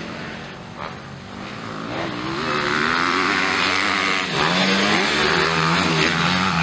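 Engines of 250cc motocross bikes revving on the track, the pitch rising and falling with the throttle. It grows louder from about two seconds in.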